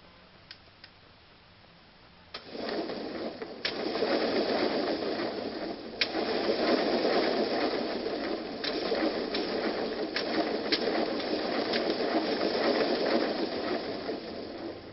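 Razor electric scooter motor switching on about two and a half seconds in and running steadily, driving the wheel that turns a homemade spinning chair, with occasional sharp clicks and knocks as the chair shakes. The whirr fades away near the end.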